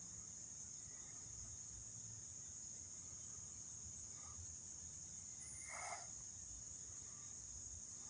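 Faint, steady, high-pitched insect chorus in woodland. A brief soft sound comes about six seconds in.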